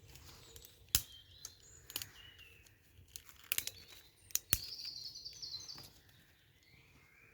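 Woodland birds calling with short chirps and a trill, with several sharp knocks scattered through, the loudest about a second in.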